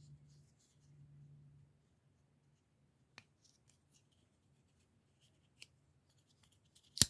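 A few light clicks and taps from handling a small Gerber single-blade folding knife with a stainless blade and plastic handle, ending with a louder sharp click near the end.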